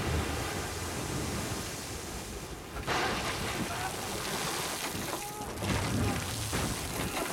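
Storm sound on a film soundtrack: heavy rain, wind and a rough sea crashing against a wooden ship. About three seconds in, a sudden loud surge as seawater bursts into the ship's hold.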